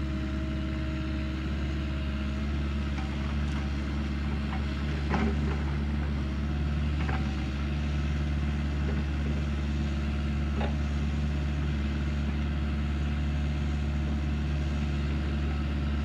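Heavy construction machine's engine running steadily at a low, even pitch, with a few faint clicks around the middle.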